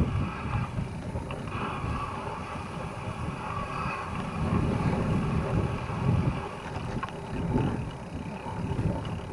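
Wind rushing over the microphone and a low rumble from a mountain bike rolling along a paved alley, swelling and easing as it goes.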